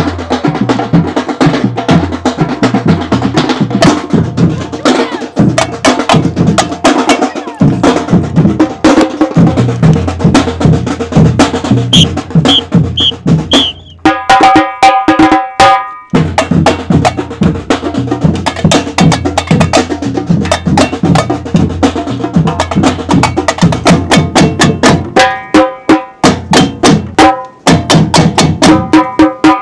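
Samba band drumming: deep bass drums, snares and other hand percussion in a fast, loud rhythm. A few short high notes near the middle lead into a break of about two seconds where the deep drums stop and only higher-pitched percussion plays, then the full band comes back in.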